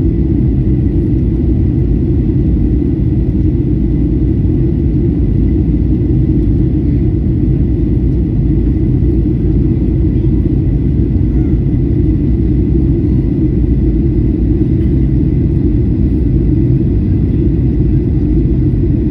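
Airliner cabin noise: a loud, steady low rumble from the engines and airframe, with a faint steady high tone above it.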